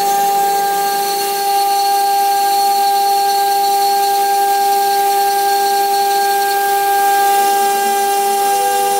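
High-speed CNC router spindle running with its bit cutting into stone under a stream of water. It gives a steady high whine with a hiss.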